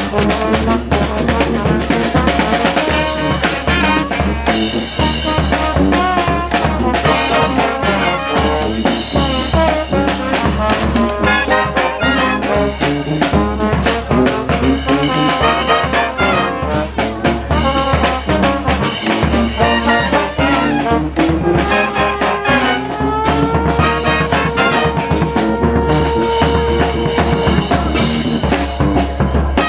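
Street brass band playing live: trumpets and trombones over marching drums at a steady beat. About three quarters of the way through, the horns hold one long note for several seconds.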